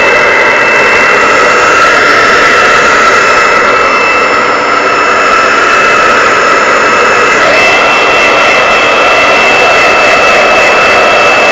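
Hand-held hair dryer running on its hottest, highest setting: a loud, steady blowing with a high whine, its tone changing about seven and a half seconds in.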